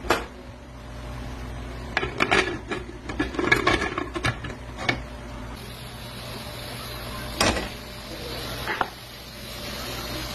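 Scattered knocks and clatters of pots and utensils being handled on a stove, over a steady low hum.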